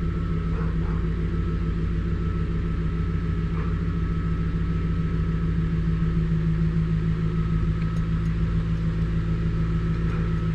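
Infiniti Q45's 4.1-litre VH41DE V8 idling steadily in drive. The idle is smooth and no longer shaking, its rough idle cured by a throttle-body cleaning.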